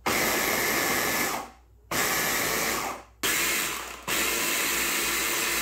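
Electric hand blender with a chopper bowl chopping peeled garlic cloves into paste, run in pulses: the motor runs steadily about four times, each for one to two seconds, with short stops in between.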